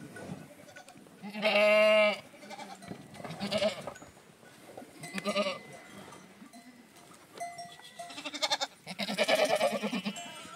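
Goats and sheep bleating: about five separate calls, the loudest and longest about a second and a half in.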